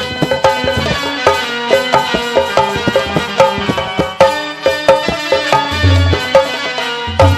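Instrumental music interlude: a melody of held notes over a quick hand-drum beat in the tabla style, with a few deep bass drum strokes, the loudest about six seconds in.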